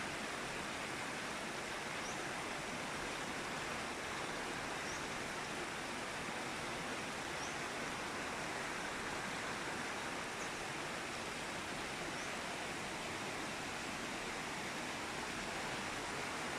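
Mountain river rushing steadily, an even roar of water with no change in level.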